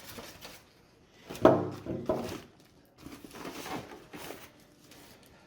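Hands unpacking monitor parts from their packaging: a sharp knock about one and a half seconds in, then a few lighter clacks and some rustling.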